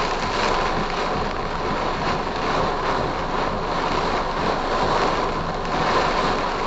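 Heavy wind-driven rain and gusts beating on a stopped van during a severe thunderstorm, heard from inside the cabin as a steady, even rush.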